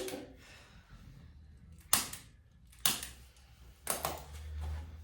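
Activator adjusting instrument, a spring-loaded chiropractic tool, clicking four times, about a second apart, as it is fired against the body.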